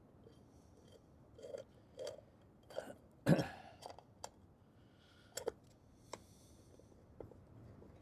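Hand tools working the points cover off a Suzuki GS1000 engine: scattered light metallic clicks and small knocks from the Allen key, bolts and cover, the loudest a single knock about three seconds in.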